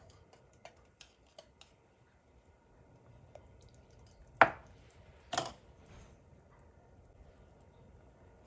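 A metal spoon clinking while seasoning is added to a pot of soup. There are a few faint ticks, then two sharp knocks, the louder one about four and a half seconds in and another a second later.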